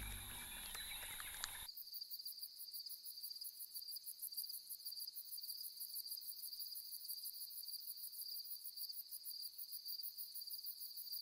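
Faint night chorus of crickets: a steady, high-pitched chirring made of rapid, even pulses, coming in suddenly after background music cuts off a second or two in.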